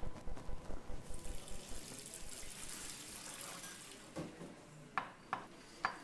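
Water running from a tap into a commercial kitchen sink, followed near the end by a few light clinks of utensils or dishes.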